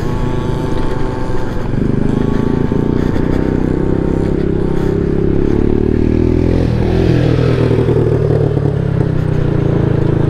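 Honda Ruckus scooter's 49cc single-cylinder four-stroke engine running under way on a gravel dirt road, with gravel clatter under the tyres. The engine note dips and climbs again about seven seconds in, and a quad's engine grows louder close by near the end.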